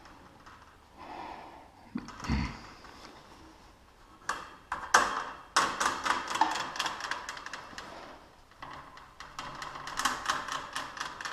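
Rapid metallic clicking and rattling in irregular runs as the loose drive chain of a garage door opener is handled and worked on, with a dull thump about two seconds in.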